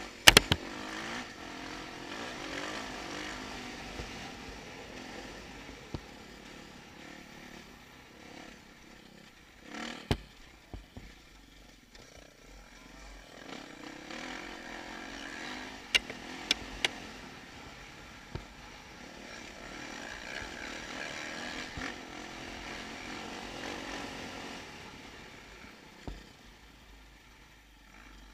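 Dirt bike engine heard from the rider's helmet camera, its pitch rising and falling as the throttle opens and closes over rough trail. Several sharp knocks cut in: one near the start, one about ten seconds in, and three in quick succession around sixteen seconds in.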